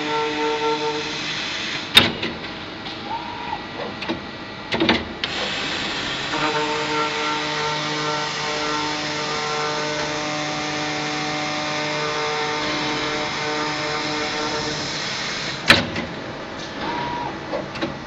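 Automatic metal-cutting circular saw machine running through its work cycle on steel round bar. A steady pitched hum from the saw drive stops for a few seconds and then comes back. Sharp metal clanks come about two seconds in and again near the end, as the bar is fed and clamped.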